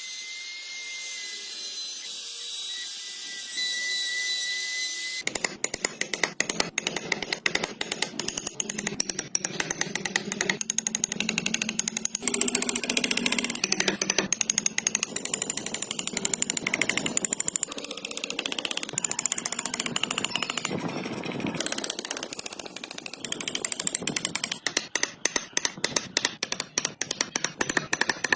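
Woodworking power tool at work on wood: a steady high whine for about five seconds, then a fast rattling run of many quick strikes a second.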